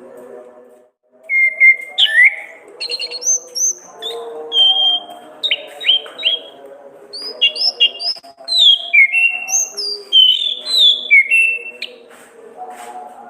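Orange-headed thrush singing a fast, varied run of clear whistled notes, each short and sliding up or down in pitch, one after another. A faint steady layer of lower tones sits underneath, and the song stops about a second before the end.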